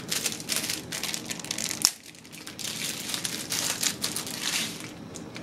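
Incense package being handled and opened: packaging crinkling and rustling in bunches, with one sharp click a little under two seconds in.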